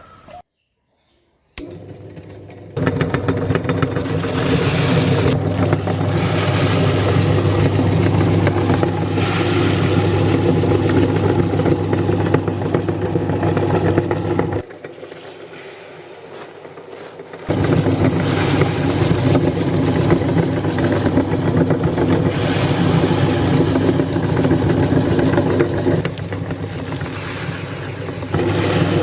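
Electric meat grinder running with a steady motor hum and a grinding, scraping noise over it. It starts about three seconds in, stops for about three seconds around the middle, then runs again.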